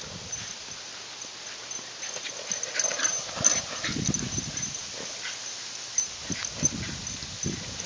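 Small white terrier making short, repeated vocal sounds as it chases and noses a large ball across grass, loudest about four seconds in and again near the end.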